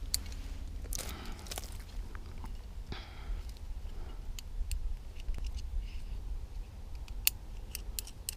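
Sharp metal clicks and clinks of carabiners and a figure-eight rappel device being handled at a climbing harness while the rope is rigged for a rappel, with brief rustling of rope and gear. The clicks come scattered, several close together near the end, over a steady low rumble.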